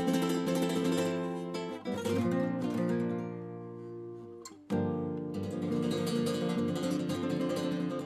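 Alhambra Z-Nature nylon-string guitar played solo with fast strummed chords. About halfway through, a chord is left to ring and fade, then the strumming starts again sharply.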